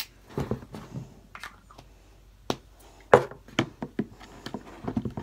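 Scattered light taps and knocks of a utensil and hands working shaving cream and glue slime in a plastic tub, with one sharp knock about three seconds in.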